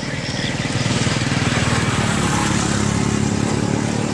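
Motorbike engine passing close by, with a fast steady pulse. It swells during the first second, holds steady, and begins to ease off near the end.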